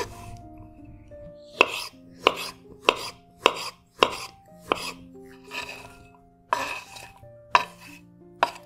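Kitchen knife knocking on a bamboo cutting board as black olives are sliced, a sharp knock about every half second, then softer clatters in the second half as the slices are tipped from the board into a glass bowl. Soft background music plays throughout.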